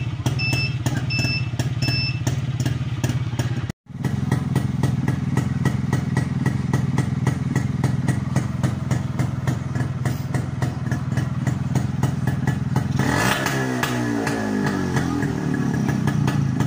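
Kawasaki HD3 motorcycle's two-stroke single-cylinder engine running steadily with a rapid, even beat. At first it is joined by a turn-signal buzzer beeping about once every 0.7 s. The sound drops out briefly about four seconds in, and a burst of noise with a shifting, falling engine note comes in near the end.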